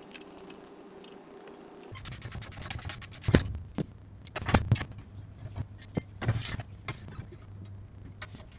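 Metal parts of a cylinder mower's steel frame knocking and scraping together as it is taken apart, with a run of sharp clanks between about three and six and a half seconds in, the first the loudest.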